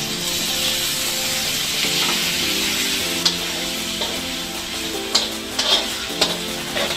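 Diced pork sizzling steadily in hot oil in a steel wok (kawa), just added to the sautéed onion. A metal spatula clicks and scrapes against the wok a few times in the second half as the meat is stirred.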